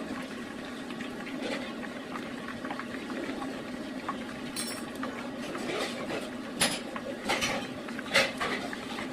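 A steady watery hiss with a few sharp clicks and knocks in the second half, typical of home food preparation.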